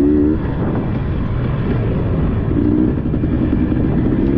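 Dirt bike engine running under throttle, its pitch rising briefly at the start and holding steadier later, over a constant low rumble.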